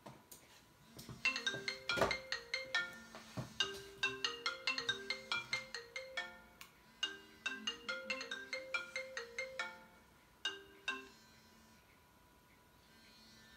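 Phone ringtone playing a quick melody of short pitched notes, starting about a second in and stopping about eleven seconds in: an incoming phone call.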